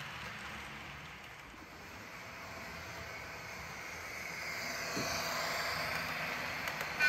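Model railway locomotive running, its hum and whine swelling from about two seconds in. A sudden louder tone breaks in at the very end.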